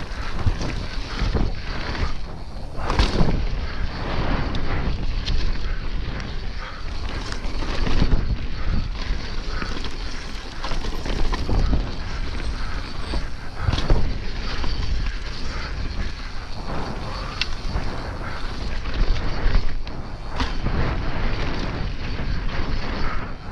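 Yeti SB150 mountain bike riding fast down a dirt singletrack, heard from a camera on the rider. Wind rushes over the camera microphone along with a steady rumble of tyres on dirt. Frequent irregular knocks and rattles come from the bike jolting over bumps and roots.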